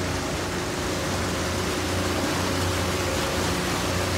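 Boat motor running at a steady pace with a constant hum, over an even hiss of wind and water noise.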